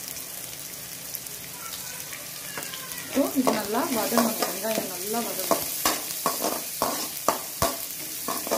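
Shallots, curry leaves and dried red chillies sizzling in hot sesame oil in a metal kadai. From about three seconds in, a perforated steel ladle stirs them, scraping and clinking against the pan.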